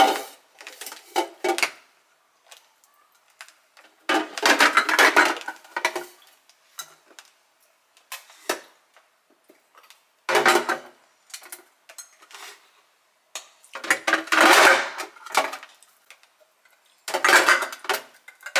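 Tins of tuna clinking and clattering against each other and against a clear plastic storage canister as they are dropped in and stacked. The clatter comes in about half a dozen bursts with short pauses between them, some of them a second or two long.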